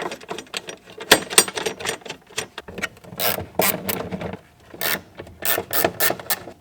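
Ratchet clicking in irregular spurts as the taillight's fasteners are undone.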